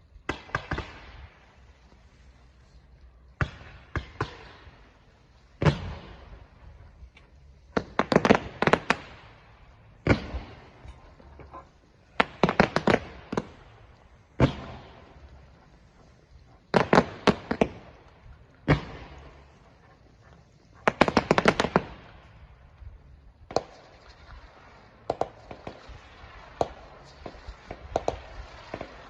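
Low-noise display fireworks going off in quick clusters of sharp pops and crackles, a new salvo about every two seconds, with no heavy booms.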